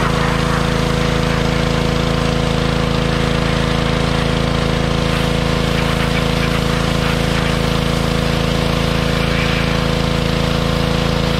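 Gas pressure washer's small engine running steadily, with the hiss of the water jet spraying the rusty seat springs and frame.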